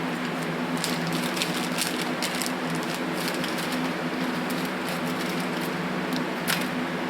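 Light, irregular clicks and rustles of paper gaskets from a carburetor overhaul kit being handled and sorted, over a steady low hum.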